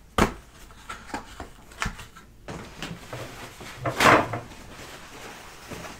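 Knocks and clicks of objects being handled and moved on a table, with a longer, louder noise about four seconds in.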